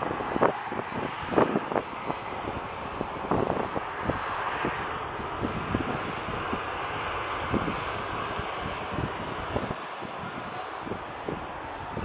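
Jet airliner engine noise from across the airfield: a steady rushing roar that swells slightly a few seconds in and then eases off. Irregular soft thumps on the microphone run through it.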